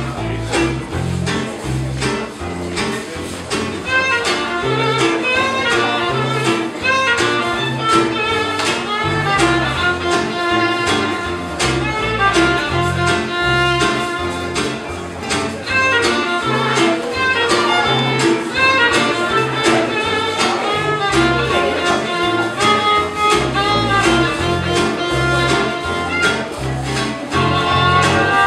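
Small acoustic swing band playing an instrumental passage: guitars keep the rhythm, an acoustic bass guitar walks on the beat, and a violin plays the melody over them.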